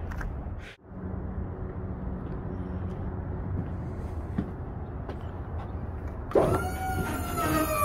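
Steady low rumble of a big-rig truck's engine. About six seconds in, a loud sustained tone starts suddenly, sags slightly in pitch, then holds steady.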